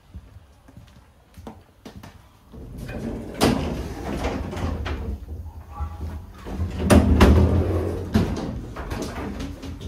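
Doors between passenger coaches being pushed open and banging shut as someone walks through. There are light clicks at first, then from about a quarter of the way in a loud low rumble with several sharp bangs; the loudest comes about two-thirds in.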